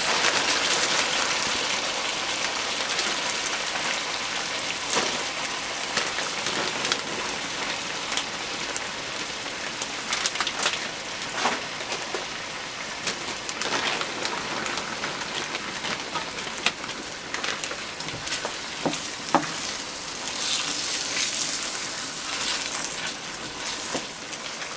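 A base of blended vegetables and tomato paste sizzling and crackling steadily in oil in a pot, with occasional sharp clicks and knocks.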